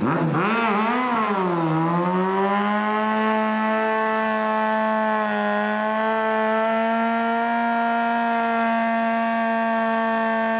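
Honda CBR600 inline-four sport bike engine revved up and down twice, then held at high, nearly steady revs as the rear tyre spins in a smoking burnout.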